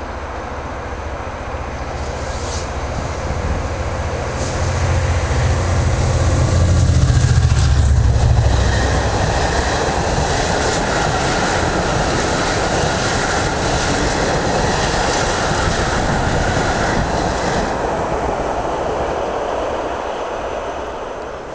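Class 67 diesel-electric locomotive, with its EMD V12 two-stroke engine, approaching and passing at speed, its low engine rumble loudest about seven seconds in. A long rake of Pullman coaches follows, with a run of wheel clicks over the rail joints that fades away near the end.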